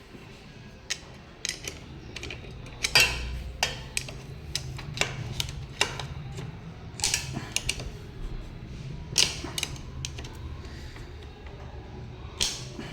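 Metal hand tools clicking and clinking against engine parts in irregular, sharp knocks, over a steady low hum.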